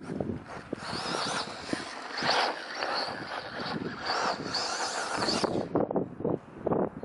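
Brushless electric motor of a 2WD short-course RC truck (Trackstar 6.5T 5485kv) whining high, rising and falling with the throttle from about a second in until it cuts off near the end. Wind buffets the microphone with low rumbles throughout.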